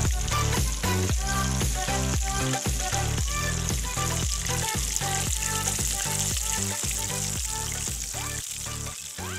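Battered chicken legs deep-frying in a large wok of hot coconut oil, the oil sizzling steadily, fading somewhat near the end. Background music with a steady beat plays over it.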